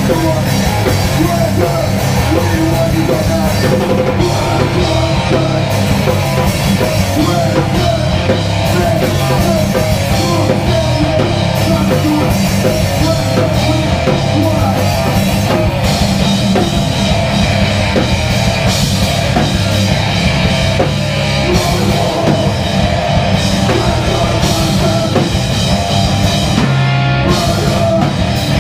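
Hardcore punk band playing live: distorted electric guitar and a fast drum kit, with shouted vocals over the top.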